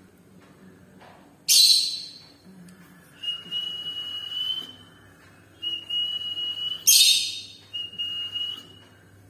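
Rosy-faced lovebird giving two loud, harsh shrieks about five seconds apart. Between and after them come three steady high whistles, each held at one pitch for about a second.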